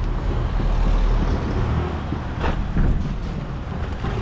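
Street traffic with a motor vehicle engine running nearby, a steady low rumble, and one sharp click about two and a half seconds in.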